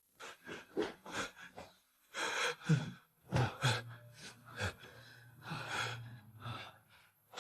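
A man's gasping, laboured breaths, a dozen or so short ones, with a low drawn-out moan through the middle.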